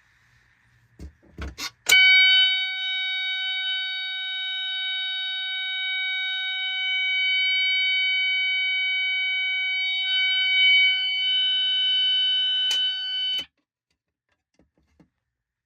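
A fire alarm sounder gives a loud, steady, continuous tone for about eleven seconds and then cuts off suddenly. A few clicks come just before it starts.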